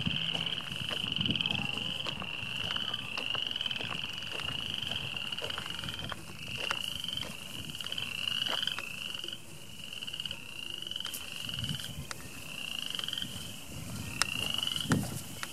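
A chorus of frogs calling from shallow wetland pools: overlapping rising trills, each about a second long, repeating without a break. A few scattered clicks and a thump near the end.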